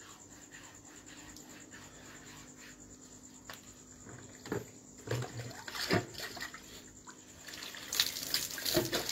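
Water sloshing in a plastic bucket as hands work in it, with two short splashes midway, then a metal dipper of water poured over a person's head and splashing down onto concrete near the end.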